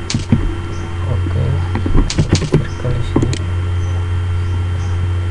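Steady electrical hum from the recording setup, with sharp clicks of computer keys and mouse buttons: one just after the start, a quick run of them about two seconds in, and a couple more a little after three seconds.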